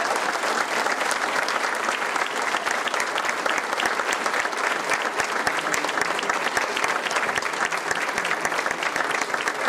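A large audience applauding, many hands clapping steadily throughout.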